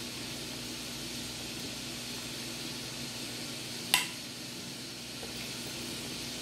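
A metal spoon clinks once against a glass baking dish about four seconds in while spreading cream of mushroom soup, over a steady hiss.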